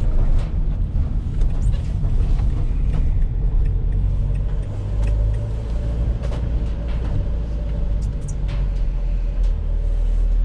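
Van engine and road noise heard from inside the cab while driving, a steady low rumble with a faint steady whine joining about four seconds in.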